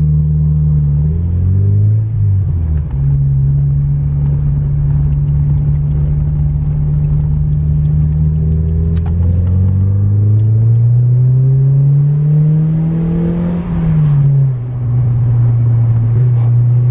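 Mazda MX5 1.8 four-cylinder engine, fitted with a cold-air induction kit, pulling the car along. Its note climbs and then drops at a gear change near three seconds, holds steady, climbs again under acceleration, and drops at another gear change about fourteen seconds in.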